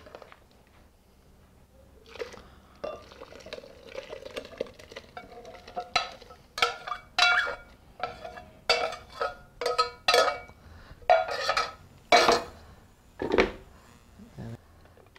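Hot soup poured from a stainless steel pot into a glass blender jar, then a utensil scraping and knocking against the inside of the metal pot in a series of sharp, ringing clanks.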